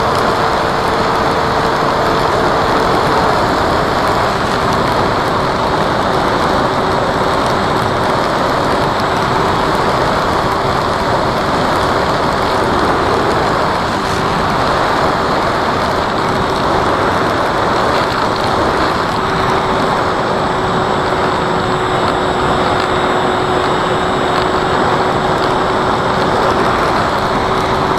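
Electric motor and propeller of an FMS Cessna model plane running steadily in flight, heard as a loud, even rush with a thin droning tone that drops slightly in pitch about three seconds in.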